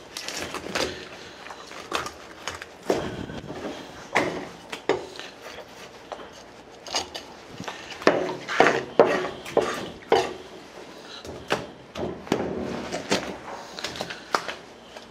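Kitchen knife knocking and scraping on a plastic cutting board as whole fish are cut up: irregular sharp chops and cuts, with the heads being taken off and the fish gutted.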